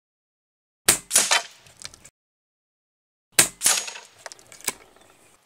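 Steel knockdown target struck by an air rifle pellet and knocked down, with sharp metallic impacts and clinks in two bursts, about a second in and again about two and a half seconds later, each ringing out briefly.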